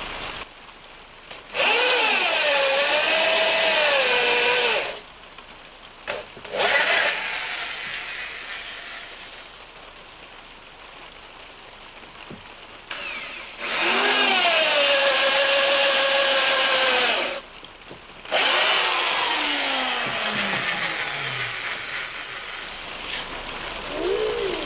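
Corded electric drill with a long auger bit boring into a dry log. It runs in two long bursts with its pitch wavering under load, and the motor winds down after each.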